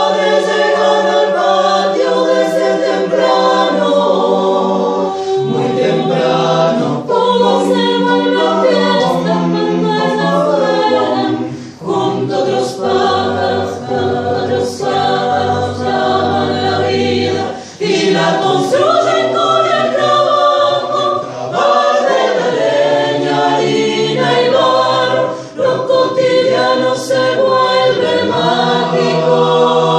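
Chamber choir singing a cappella in several parts, with sustained chords and brief breaks between phrases.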